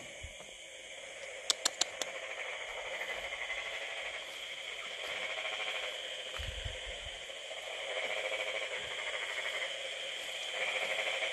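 Night chorus of frogs and insects: layered trilling and chirping in several pitch bands that swells and fades every few seconds. Three quick sharp clicks come about a second and a half in.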